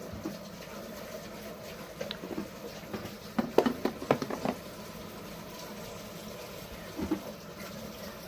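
Coffee maker brewing: a steady hum with a cluster of irregular pops and gurgles from about three to four and a half seconds in, and a shorter burst near the end.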